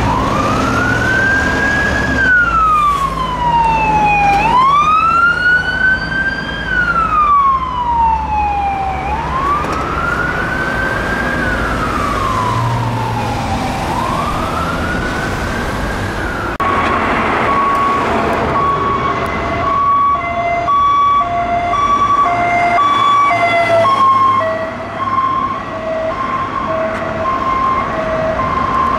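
Police car sirens. For the first 16 s or so a wail sweeps slowly up and down, about once every four and a half seconds. Then it switches suddenly to a two-tone siren alternating between a high and a low note, over passing traffic.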